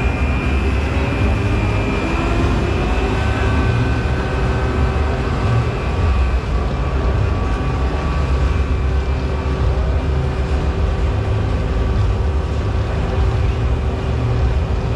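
Steady low rumble of a moving vehicle, heard from inside, with a few faint steady whines above it.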